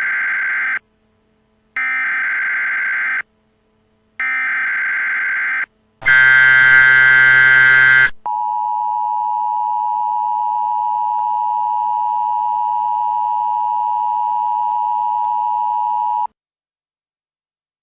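Emergency Alert System SAME header: three data bursts of about a second and a half each, a rapid warbling screech. A loud, harsh buzzing tone with many overtones follows for two seconds. Then the EAS attention signal, a steady two-tone tone, holds for about eight seconds and cuts off sharply.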